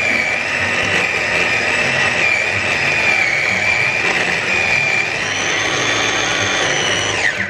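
Borosil electric chopper's motor running steadily with a high whine, grinding raw chicken into a paste. Its pitch dips a little and rises again, then it winds down near the end as it is switched off.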